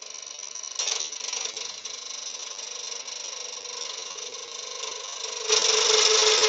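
Wood lathe running while a round-bar skew chisel cuts a spinning wooden spindle: a steady scraping cut over the hum of the lathe, growing louder about five and a half seconds in.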